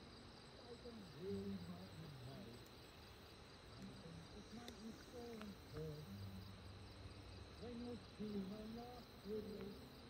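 Crickets trilling steadily, with faint, low, wavering voice-like tones coming and going in the distance, loudest about a second in and again near the end.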